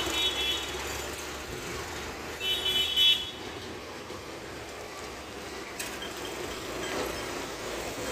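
Road traffic with a vehicle horn tooting twice: briefly at the start, then a longer, louder toot about two and a half seconds in, over the steady noise of a goods truck driving away.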